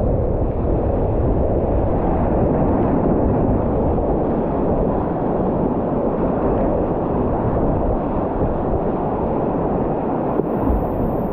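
Rushing whitewater of river rapids, a loud, steady, muffled rush with little high end.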